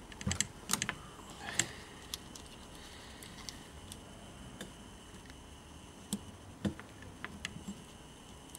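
Small plastic and metal clicks and taps from hands fitting a retaining clip onto a VW Polo window regulator's slider. There is a quick cluster of clicks in the first second and a half and a few more about six to seven and a half seconds in.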